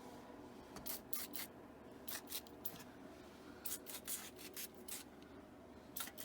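Short, scratchy rubbing strokes on the door hinge, coming in quick groups of two to five, over a faint steady hum: lubricant being worked onto the newly installed hinge pin.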